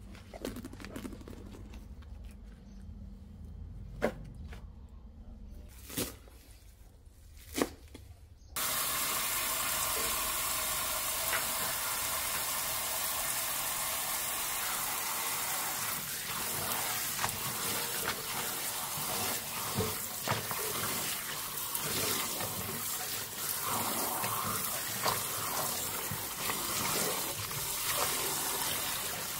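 A few sharp knocks, then about eight seconds in a kitchen tap is turned on and water runs steadily into a sink, with small knocks and clinks of things being rinsed under the stream.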